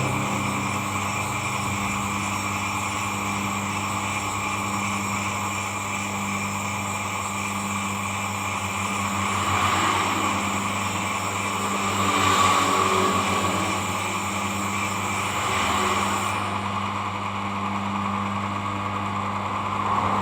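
A steady low machine hum, with a blade being rubbed on an oiled sharpening stone that swells in a soft scrape every few seconds.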